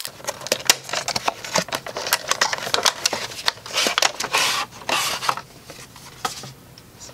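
Cardboard box and clear plastic blister tray being opened and handled: a run of sharp clicks and crackles, with the loudest plastic rustling about four to five seconds in, then quieter near the end.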